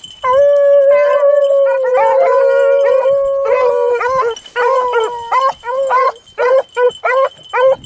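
Several beagles baying on a rabbit's trail: long, drawn-out bawls from overlapping dogs in the first half, then a run of short chop barks, about two a second.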